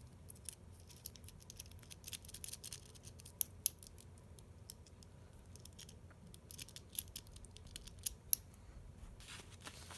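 Metal rake pick scraping and clicking against the pins inside a Master Lock 141D padlock in quick, irregular strokes, with a few sharper clicks. The raking is not getting the lock open.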